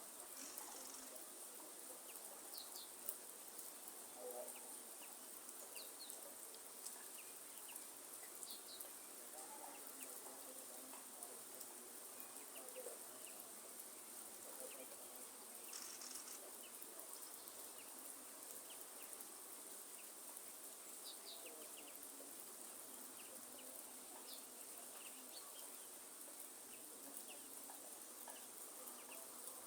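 Faint rainforest rain ambience: a steady hiss of rain under a continuous high insect drone, with short bird chirps and calls scattered throughout.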